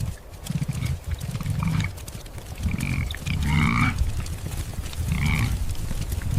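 Wildebeest grunting, a series of low nasal calls repeating and overlapping through the herd.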